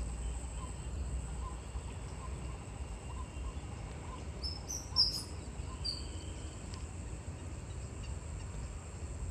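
Outdoor nature ambience with a steady low rumbling noise and faint repeated short calls. About halfway through, a bird sings a brief, high chirping phrase.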